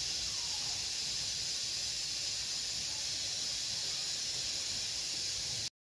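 Steady high-pitched hiss with no clear event over it, cutting off suddenly to silence near the end.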